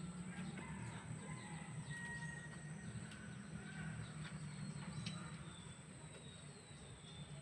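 Faint rural yard ambience: chickens and small birds chirping and clucking, over a steady low hum and a steady high hiss.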